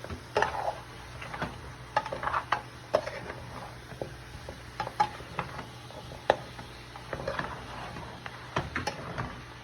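A spoon stirring and scraping in a pot of curry oxtail on the stove, with irregular clinks and knocks against the pot and a light sizzle underneath.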